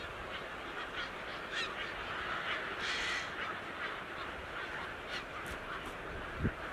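Birds calling: many short, overlapping cries, with a louder harsh call about three seconds in and a low thump near the end.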